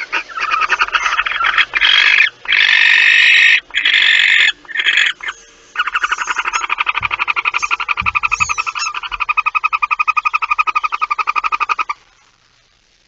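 Barn owls calling in a nest box: loud, harsh hissing rasps, a few long continuous ones a couple of seconds in, then a fast steady train of rapid rasping pulses that stops shortly before the end.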